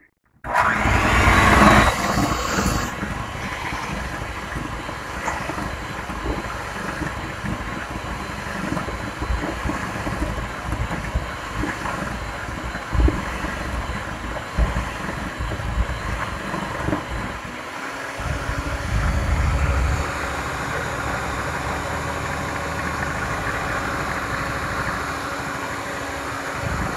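Electric hand mixer running, its beaters whirring through creamed butter and sugar in a glass bowl. It switches on about half a second in, and its sound shifts for a couple of seconds a little past the halfway point.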